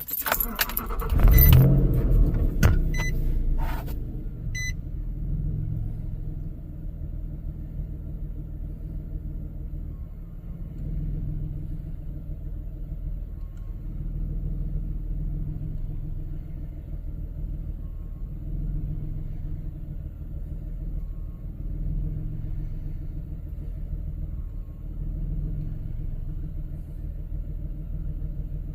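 2006 Nissan Pathfinder's 4.0 V6 engine starting up, then idling with a steady low rumble that swells and eases every two to three seconds.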